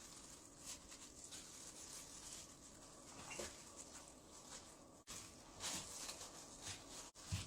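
Faint, soft handling sounds of a sheet of glutinous rice dough spread with red bean paste being rolled up tightly by hand on a board, with a few soft rubs and taps over a low hiss.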